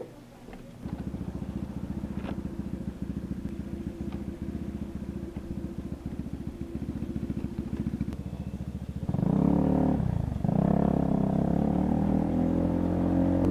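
Honda PCX150 scooter's single-cylinder four-stroke engine idling with a steady pulse, then revving up as the scooter pulls away about nine seconds in, with a brief dip before it settles at a higher, steady speed.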